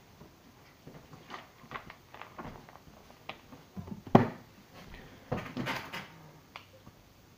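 Scattered clicks and knocks of things being handled at a table, loudest a single sharp knock about four seconds in, followed by about a second of rustling and clatter as a plastic soda bottle is picked up to drink.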